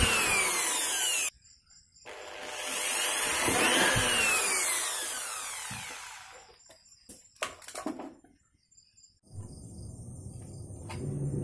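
Small electric drill boring bolt holes through a thin plastic jar: it runs for about a second and stops, then runs again for about four seconds, rising and then winding down. A few light clicks and knocks of the plastic jar and fan being handled follow.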